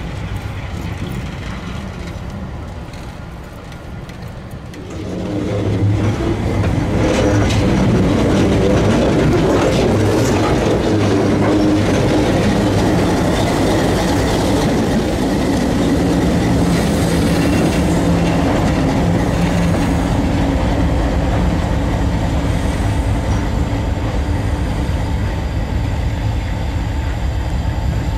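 Diesel locomotive engine running as the locomotive and a covered hopper car roll along the track, with wheel and rail noise. It sounds farther off at first and becomes much louder about five seconds in, as the locomotive runs close by.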